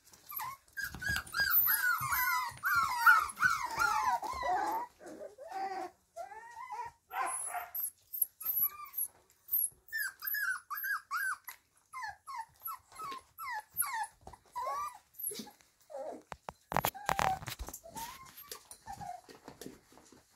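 Kromfohrländer puppies whining and yelping in short, high, bending squeals. The calls come thick and overlapping for the first few seconds, then singly and in small runs. There is a brief knock about three-quarters of the way through.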